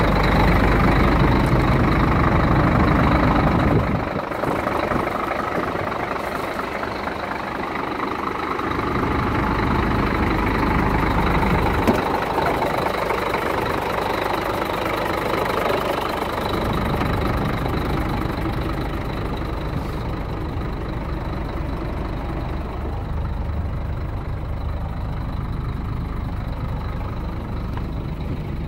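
Scania 114G 380 truck's diesel engine idling steadily, its deep low rumble weakening and strengthening by turns, with a faint steady high whine running alongside.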